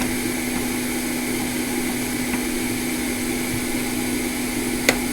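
Small electric fan or blower motor running steadily, a constant hum with one low tone held throughout. A single sharp click near the end.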